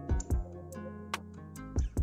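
Background music with pitched instrument notes over a beat of low drum thumps, which come in pairs shortly after the start and again near the end.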